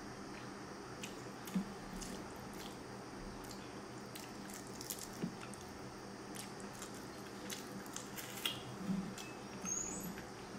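Close, wet eating sounds: chewing and mouth smacks, with fingers squishing rice mixed with fish curry on a plate. Scattered sharp clicks and a few louder smacks.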